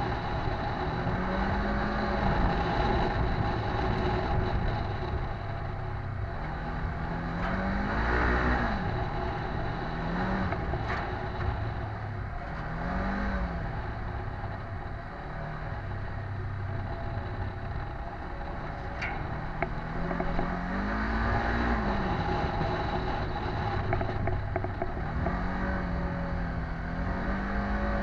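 Polaris RZR 900 side-by-side's twin-cylinder engine heard from the cockpit while driving, its pitch rising and falling again and again as it speeds up and eases off, with occasional rattles and clicks from the vehicle.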